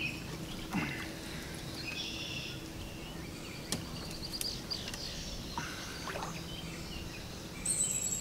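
Lakeside outdoor ambience: birds chirping now and then over a faint steady low hum and soft water-side noise.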